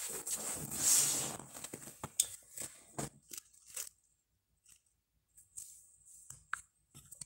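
A short rustling scrape, loudest about a second in, then scattered light taps and clicks as small figurines are handled and set down on artificial grass.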